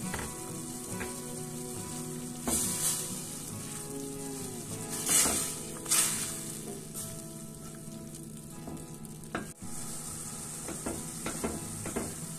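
Tomato sauce sizzling in a stainless steel pan as a silicone spatula stirs and scrapes through it, with a few louder scraping swishes, the biggest about halfway through.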